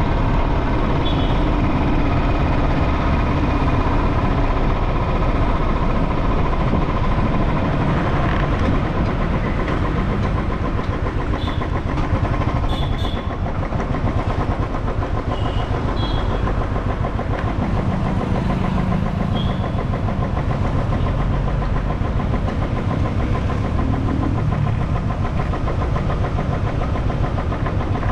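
Motorcycle engine running at riding speed under steady road and wind noise, with a few short high beeps in the middle.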